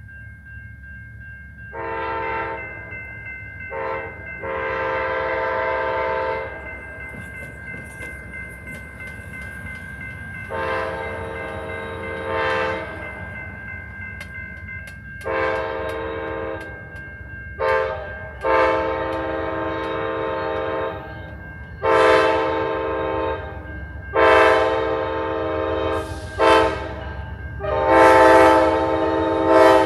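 Amtrak diesel locomotive's air horn blowing the grade-crossing signal as the train approaches: repeated sets of long, long, short, long blasts that grow louder as it nears.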